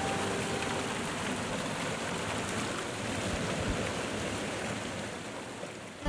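Steady rushing of a waterfall, an even hiss of falling water that slowly grows quieter toward the end. The last faint notes of soft background music die away in the first second.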